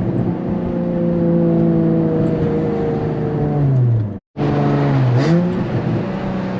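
Engine of a single-turbo Nissan 350Z HR heard from the cabin while driving, with the exhaust leak the owner says he can hear. The engine note holds steady and eases down, drops about four seconds in, cuts out completely for a moment, then climbs again.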